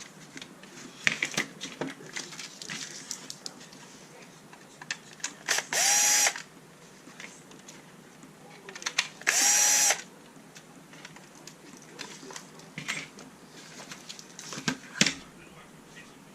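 Powered screwdriver backing screws out of a plastic RC car chassis in two short whirring runs, about six and nine and a half seconds in, between scattered clicks and rattles of small parts being handled.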